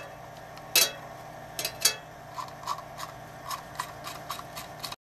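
A metal hex-key tool clinking and clicking on the allen screws of a paramotor's pull starter as they are fastened: a few sharp clinks, then a run of light, even ticks about three a second.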